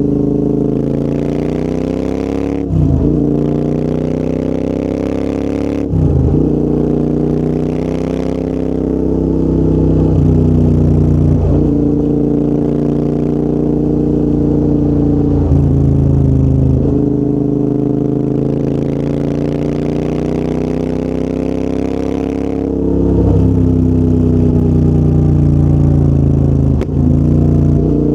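Royal Enfield Interceptor 650's parallel-twin engine through a full TEC exhaust system, on the move. The revs rise and fall, with several brief sharp breaks in the note.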